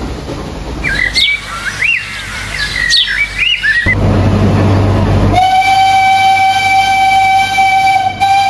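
Birds chirping over the rumble of a train. From about five seconds in, the Nilgiri Mountain Railway toy train's locomotive sounds one long, steady horn note.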